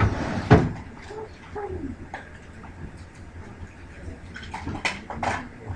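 Classroom noise while students work: a loud rushing knock about half a second in, faint murmured voices, and a few short sharp clicks near the end.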